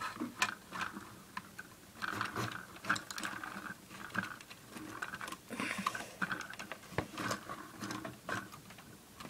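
Irregular clicks, taps and clattering of hard plastic Lego pieces being handled and set down.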